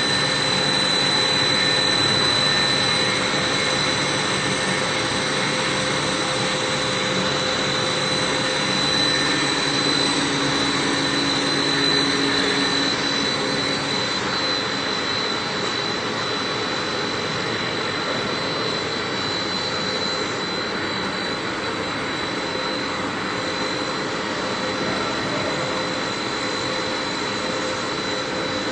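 Fine wire drawing machine with annealer running: a steady, loud mechanical hiss and hum with a constant high whine over it.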